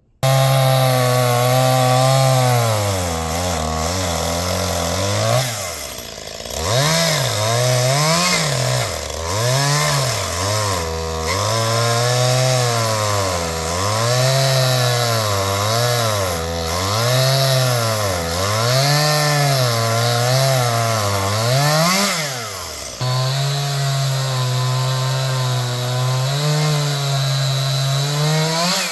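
Two-stroke Stihl chainsaw running, its engine pitch rising and falling over and over as the throttle is worked through a cut, with steadier running near the end.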